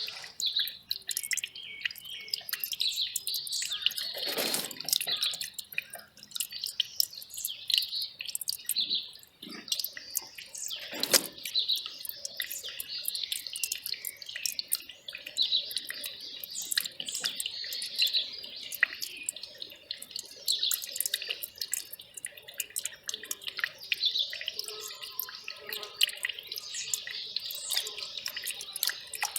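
Small mountain stream trickling and dripping, in many quick splashes, while small birds chirp repeatedly.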